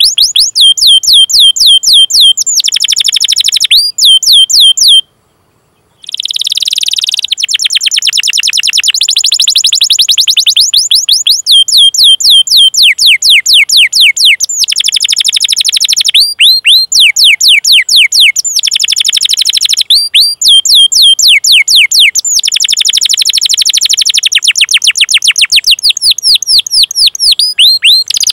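Domestic canary singing fast trains of repeated high chirps, each sliding down in pitch: the 'cuit cuit' call-notes and rolls used as training song for young canaries. A brief pause comes about five seconds in.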